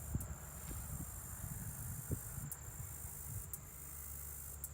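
Summer insect chorus: a steady high-pitched trill, with a few brief pulses, over a low rumble of breeze on the microphone.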